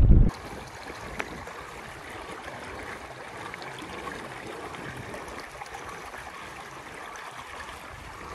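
Water trickling and gurgling steadily around a kayak, with one light click about a second in. Loud wind buffeting the microphone cuts off abruptly right at the start.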